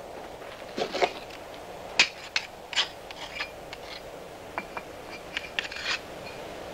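Bricks and tools clinking and knocking in about a dozen irregular sharp strikes, some with a brief ring, over steady background noise: brickwork being handled as the tower's construction begins.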